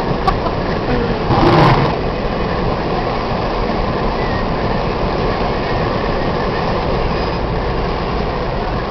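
4x4 Jeep driving at speed, heard from inside the cab: a steady rumble of engine and road noise, with a brief louder rush about a second and a half in.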